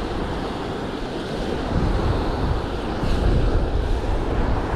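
Wind buffeting the microphone over small surf washing up on a sandy beach, with heavier gusts in the second half.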